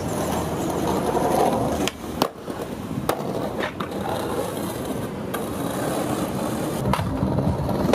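Skateboard wheels rolling over rough street pavement and stone mosaic sidewalk, a steady rolling rumble with several sharp clacks spread through it.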